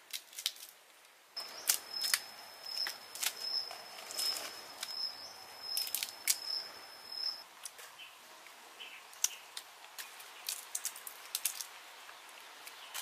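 Crisp little clicks and snaps of small wild fruits being cracked and peeled by hand among leafy branches. A high, thin call with a regular pulse runs in the background from about a second and a half in until past the middle.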